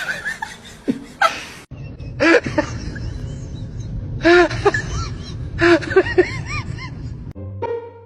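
People laughing in several short bursts of rapid, rising-and-falling calls, over background music.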